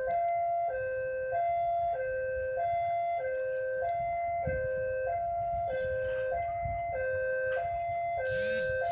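Railway level-crossing warning alarm sounding a steady electronic two-tone ding-dong, switching between a lower and a higher tone about every two-thirds of a second, the signal that a train is approaching. A brief high-pitched squeal comes in about eight seconds in, over a low rumble.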